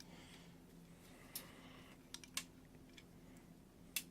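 Wires being worked through a hole in a 3D-printed plastic part: a few light, scattered clicks over faint rustling.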